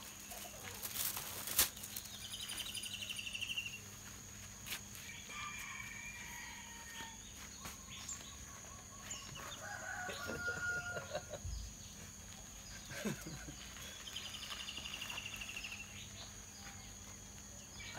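Faint farmyard morning ambience: chickens and a rooster calling now and then over a steady high-pitched insect drone, with two rapid rattling trills and a few sharp clicks.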